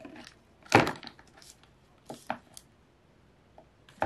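Plastic toiletry bottles and tubes knocking and clicking against each other as a hand rummages through a plastic storage bin. One sharper knock comes just under a second in, followed by a few softer clicks.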